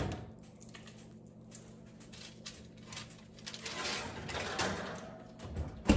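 Metal baking sheet being pulled out across an oven rack, with quiet scrapes and rustling handling noises, a thump at the start and a sharp clank right at the end.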